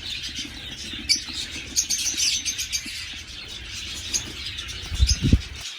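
Small cage birds chirping busily in many short, quick high notes, with a brief low knock or handling bump about five seconds in.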